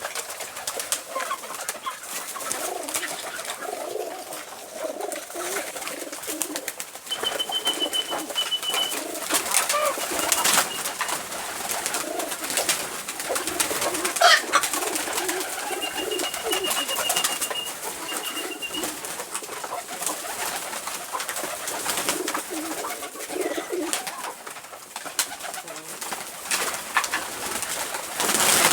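A flock of pigeons cooing, many birds at once in a continuous low murmur, with scattered clicks and rustles.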